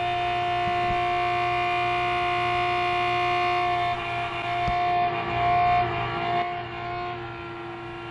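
Built-in electric oil change pump motor running with a steady pitched hum, switched to drain the generator's crankcase oil into a bucket. Its tone shifts and grows a little louder from about four to six and a half seconds in.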